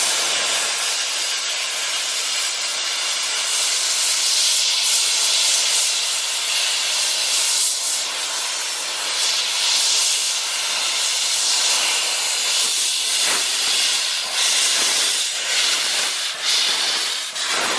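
15-inch-gauge miniature steam locomotive hissing loudly as steam blows from its open cylinder drain cocks while it moves along the platform. In the second half, regular exhaust chuffs come through the hiss and quicken toward the end as the engine passes.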